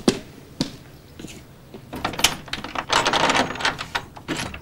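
Footsteps on outdoor stone steps: a series of hard clicks and scuffs, a few spaced steps at first, then a busier run of scuffing steps about two to three seconds in.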